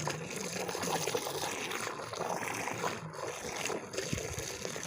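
Soapy water in a bucket being stirred, with a continuous irregular sloshing and trickling.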